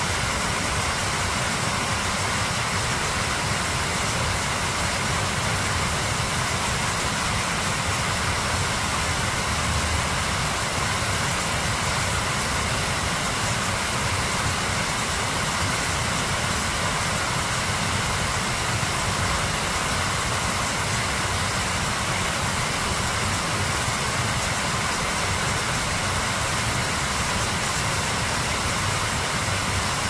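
River water rushing steadily over a shallow rapid, an even, unbroken rush of noise.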